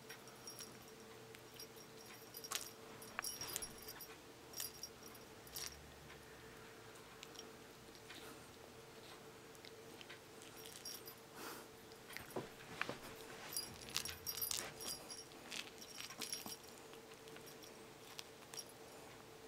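A kitten plays with a felt toy mouse on a string, making soft scattered rustles and light jingly clicks, busiest in two spells near the start and past the middle. A faint steady hum runs underneath.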